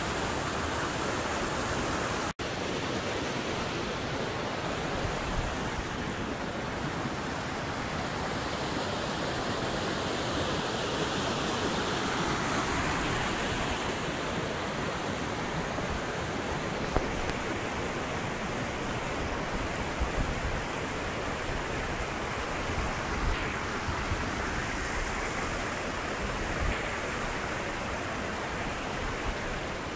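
Steady rush of a river tumbling over rock cascades and small waterfalls, with a brief dropout about two seconds in.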